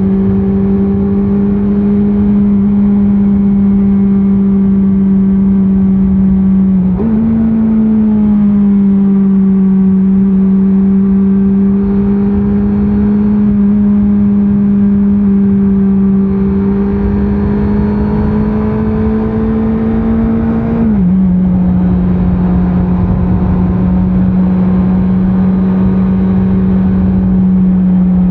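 2024 Honda CBR650R's inline-four engine under way on the road. Its note holds steady, jumps up sharply about seven seconds in, climbs slowly, then drops back sharply about three-quarters of the way through.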